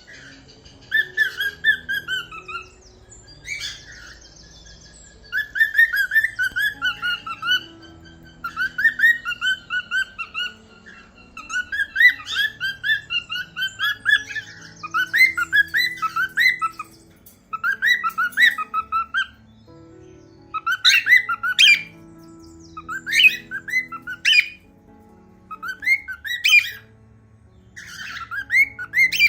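Cockatiels chirping and whistling in rapid runs of short, warbling calls, several a second, broken by short pauses.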